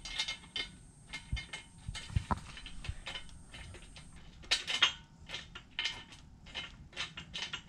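Metal tools and hardware clinking and clanking at irregular intervals, with a couple of dull knocks in the first seconds and a sharper run of clanks about four and a half seconds in.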